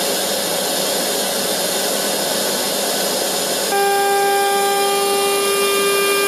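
CNC 6040 router's spindle running at speed with a long 6 mm double-flute endmill, a steady high hiss. About four seconds in, a steady whine of several held tones joins it as the machine feeds the cutter through the EVA foam, making a smooth cut.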